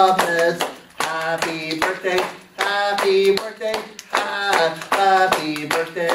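Voices singing a birthday song while hands clap along to the beat, the claps coming as sharp, regular smacks under the singing.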